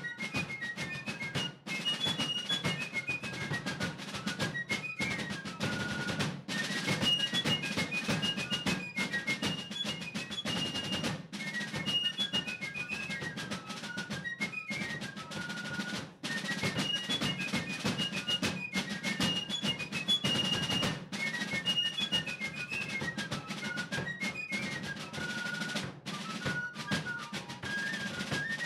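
Instrumental background music: a fast snare drum rhythm under a high, repeating melody.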